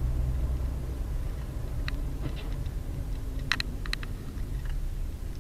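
Steady low rumble of engine and road noise inside a moving car's cabin, picked up by a dashcam. A few brief high chirps come about two seconds in and again around three and a half to four seconds.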